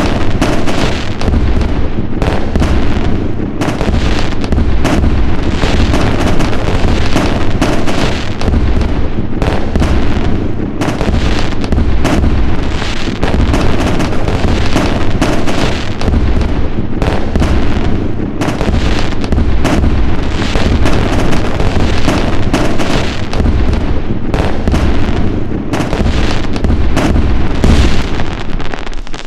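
Fireworks going off in a dense, continuous barrage of bangs and crackles over a deep rumble, stopping abruptly at the very end.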